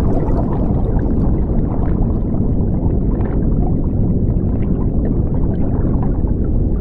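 Stock underwater sound effect: a steady, deep rush of bubbling water that cuts off suddenly at the end.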